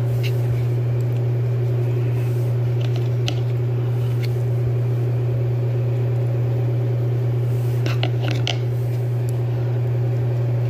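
A steady low hum, like a small motor or fan, with a few faint clicks and taps from plastic toy parts being handled.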